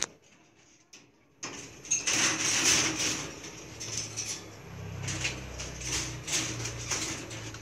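About a second and a half of near silence, then irregular clicking, scraping and rattling as Belgian Malinois puppies move about a wire pen with a plastic slatted floor.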